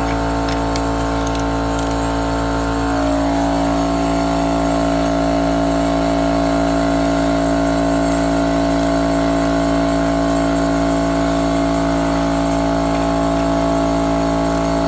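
Air compressor running steadily, a hum made of several steady tones, some of whose upper tones shift about three seconds in.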